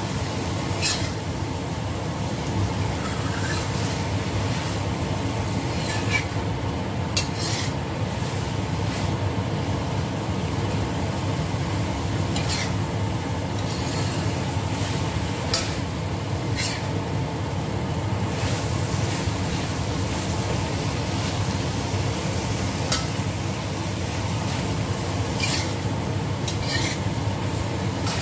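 Tempe in sauce sizzling as it is stir-fried in a stainless steel wok, cooking down until dry. A metal spatula scrapes and taps against the wok every few seconds.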